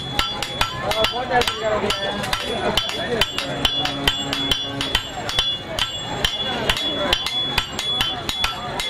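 Blacksmith's hammer striking iron on an anvil in quick, regular blows, several a second, each with a bright metallic ring.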